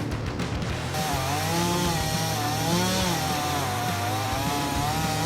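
Chainsaw cutting into a tree trunk, its engine note wavering up and down as it works. It cuts in about a second in, over a rhythmic background that fades out.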